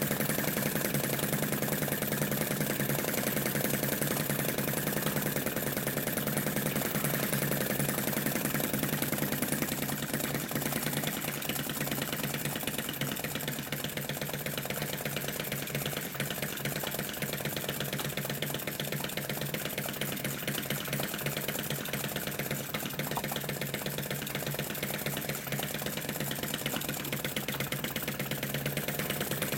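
Model flame-eater (flame-licker) engine built as a Lanz Bulldog tractor, running steadily with a rapid, even clatter of clicks while it belt-drives a model oil-field pump jack and a small generator.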